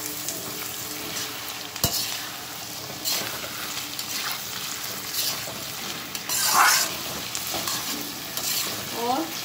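Sliced onions sizzling in hot mustard oil in an iron kadhai, stirred with a metal spatula that scrapes against the pan. A sharp clack comes about two seconds in, and the loudest scrape comes between six and seven seconds in.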